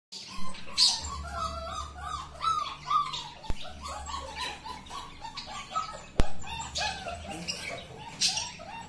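Beagle puppies whining and yelping in a run of short, high cries that rise and fall in pitch, several a second, with two sharp clicks partway through.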